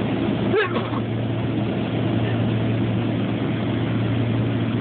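Steady airliner cabin noise in flight: an even drone of engines and airflow with a constant low hum.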